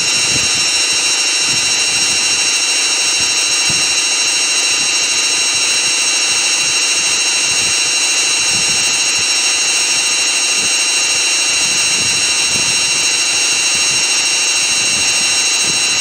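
Samsung Eco Bubble WF60F4E4W2W front-loading washing machine on its spin cycle at a steady speed: a constant high-pitched motor whine over the rush of the spinning drum.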